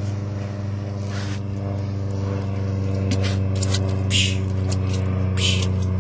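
A steady low hum like an idling motor, even in pitch throughout, with a few short hissing sounds over it in the second half.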